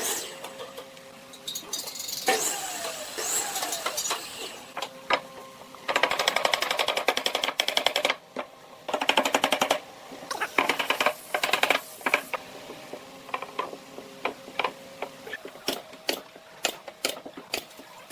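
A small machine chattering very fast in two bursts of a few seconds each, with scattered knocks and clicks between them.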